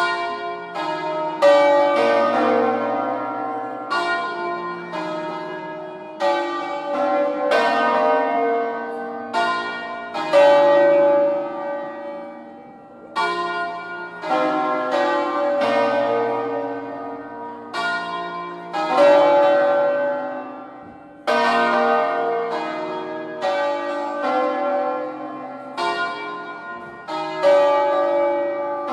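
Ring of five hand-rung church bronze bells in B-flat, cast by Felice Bizzozero of Varese in 1859, swinging full circle on their wheels in a full peal. Their strokes overlap, each ringing on and fading, and come in louder waves every few seconds as the bells turn over.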